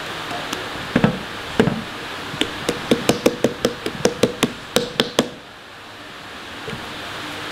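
Hands kneading and pressing a stiff ball of naan dough against a floured metal tray, the dough knocking on the metal: two knocks, then a fast run of about five knocks a second that stops about five seconds in.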